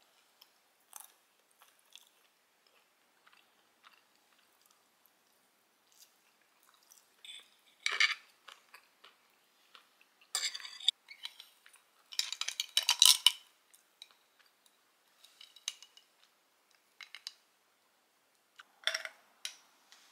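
Knife and fork cutting and scraping on a ceramic plate, with scattered light clinks and louder clusters of scraping and clatter about eight, eleven, thirteen and nineteen seconds in.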